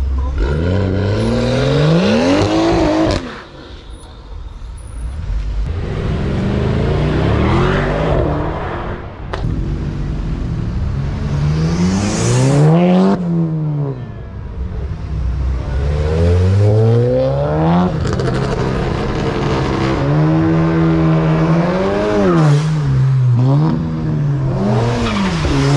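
Cars, Volkswagen Golfs among them, accelerating hard one after another, each engine revving up and cutting off sharply at the top. From about twenty seconds in, an engine is blipped up and down in quick revs.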